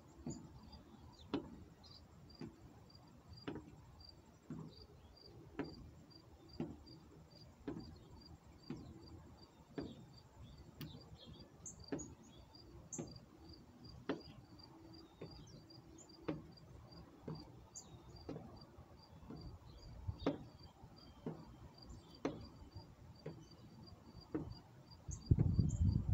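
Footsteps of sneakers on a wooden deck about once a second, from marching in place with high knee lifts. Behind them runs an insect's steady high chirping, with a few bird chirps. A louder low rumble comes in near the end.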